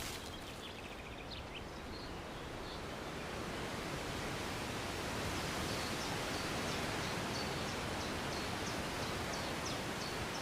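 Forest ambience: a steady rushing noise, heaviest in the low end, with faint short high chirps repeating through the second half.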